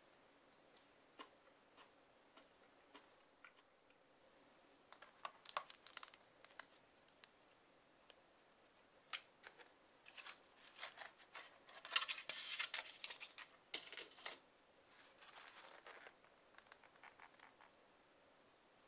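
Clear plastic lid of a takeout rice bowl being handled and pulled off, a crinkling, crackling rustle of thin plastic that is loudest around the middle. Scattered light clicks and taps come before it.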